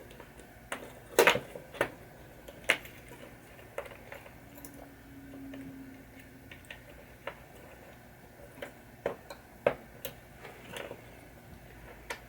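Irregular light clicks and clinks of small metal parts being handled as a pinball saucer kicker assembly is put back together, a spring being refitted. The sharpest clicks come a little over a second in and again near the end.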